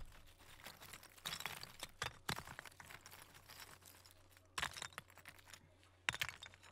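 Gloved hands scraping and digging in loose volcanic soil and lava rubble: a few short, irregular crunching scrapes of grit and cinders.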